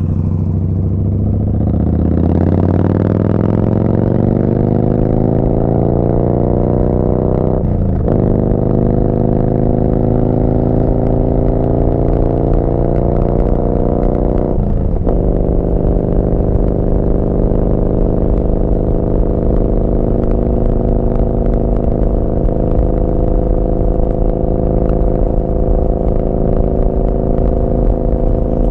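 Yamaha Bolt's air-cooled V-twin through a Vance & Hines slip-on exhaust, accelerating: the engine note rises, drops briefly at an upshift about eight seconds in, rises again to a second upshift about halfway through, then holds a steady cruising note.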